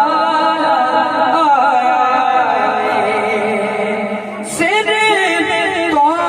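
A boy's voice singing a naat into a microphone, drawing out long ornamented notes with a wavering vibrato. A new, higher phrase begins about four and a half seconds in.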